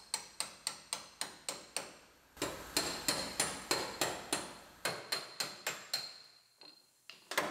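Body hammer striking a steel scraper used as a chisel to split the spot-welded cab corner seam. The metallic strikes come about three a second, each ringing briefly, pause about two seconds in, then resume and fade near the end.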